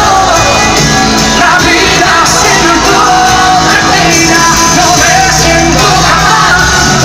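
Loud live pop-rock music from a concert: a full band playing with singing over it.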